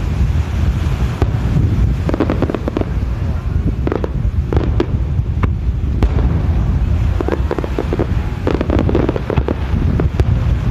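Aerial fireworks shells bursting overhead, with rapid clusters of sharp cracks and crackles about two seconds in, again around four to five seconds, and from about seven to nine and a half seconds. Steady wind buffets the microphone throughout.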